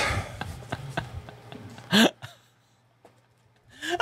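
A man laughing breathily in quick, faint pulses, then one short, loud, rising vocal yelp about two seconds in.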